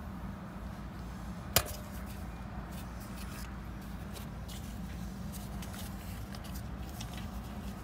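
Sensor wires on a car's front wheel hub being unhooked by hand: one sharp click about one and a half seconds in, then light handling clicks, over a steady low background hum.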